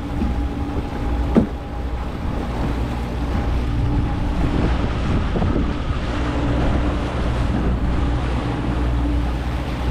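Boat motor running steadily under way, with wind buffeting the microphone and a wash of water. A single sharp knock comes about a second and a half in.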